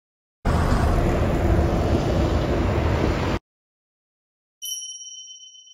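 About three seconds of steady, loud noise, heaviest in the low end, starting and stopping abruptly. A bright ding sound effect follows about four and a half seconds in and rings out for over a second.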